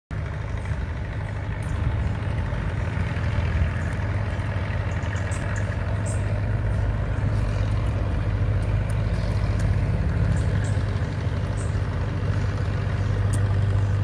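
An engine running steadily with a low, even drone, with faint scattered ticks above it.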